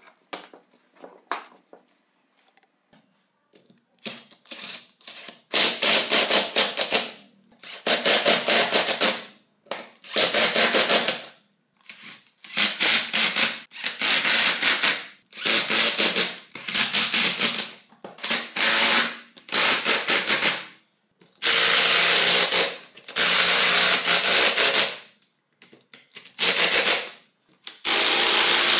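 Electric screwdriver whirring in about a dozen short bursts of a second or so each, driving screws into a plastic power-tool housing. Before them come a few faint clicks of parts being handled.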